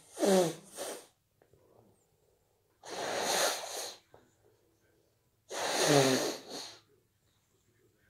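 A person with a stuffy, snotty head cold sneezing and blowing their nose, in three separate bursts: one trailing off about a second in, another around three seconds in, and a third around six seconds in.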